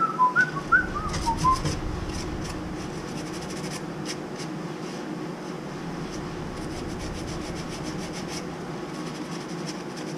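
A short run of quick high whistled notes in the first second and a half. After that, light scraping, rubbing and clicking of gloved hands working a metal pipe fitting, over a steady low hum.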